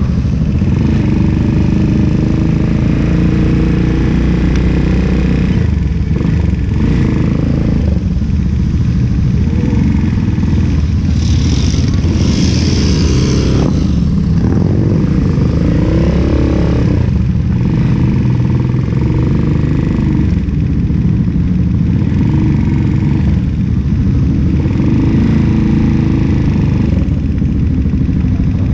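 Keeway K-Light 202's single-cylinder engine running steadily at low speed while the motorcycle rolls along slowly, picked up by a camera on its handlebars, with other motorcycles riding just ahead. A brief hiss joins in about eleven seconds in.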